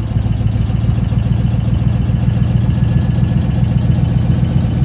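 A 1979 Jeep's engine idling steadily, heard close at the tailpipe as an even, rapid exhaust pulse.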